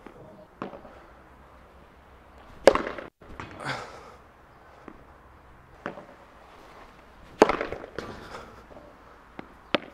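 Padel racket (Cork Supreme II Control) smashing the ball twice: two loud sharp cracks about 4.7 seconds apart, the first nearly 3 seconds in and the second near 7.5 seconds. Fainter knocks of the ball in between.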